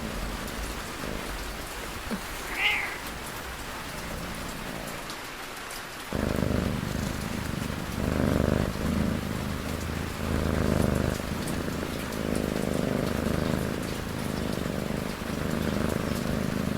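Steady rain pattering, with a cat's snoring purr: slow low rumbling breaths every second or two, starting abruptly about six seconds in. One short high chirp about three seconds in.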